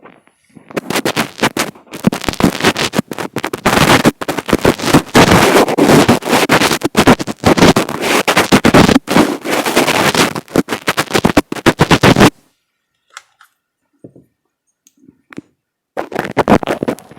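Fingers rubbing, scratching and tapping directly on an earphone microphone, giving loud, dense crackling with sharp clicks. It stops about twelve seconds in, leaving a few faint ticks, then starts again near the end.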